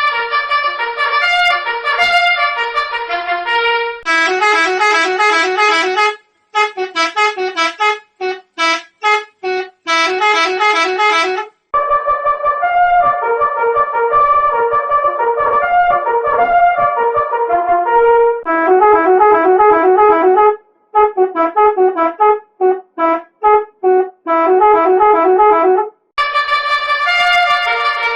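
Musical bus horn playing a melody, repeated in edited variations whose tone changes every few seconds; twice the tune breaks up into rapid, stuttering short notes.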